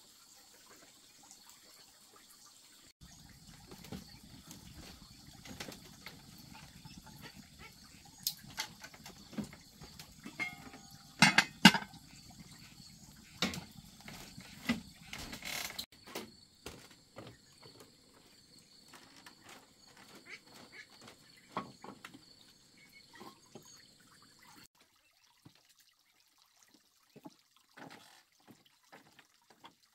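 Scattered clicks, taps and knocks over a faint low rumble, with a loud cluster of sharp clicks about a third of the way in, from a small wood fire and movement on a bamboo floor. Near the end come a few footsteps on a bamboo deck.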